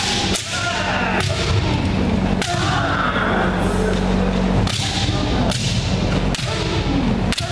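Kendo practice: bamboo shinai cracking against armour and against each other, sharp strikes about once a second, mixed with fighters' kiai shouts and stamping feet, echoing in a large gym hall.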